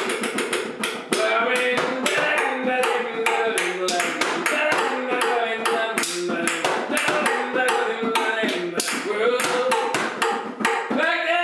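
An improvised percussion jam: a fast run of hand-slapped hits on bongos and knocks on household objects. A voice sings along from about a second in.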